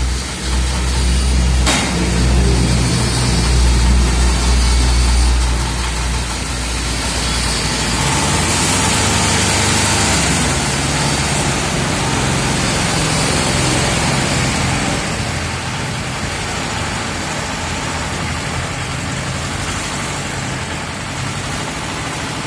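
Engine of a homemade tracked carrier built on a rice-harvester chassis, running. A deep, steady hum for the first six seconds or so changes from about eight seconds into a hissier, lighter sound as the machine is worked and gets under way.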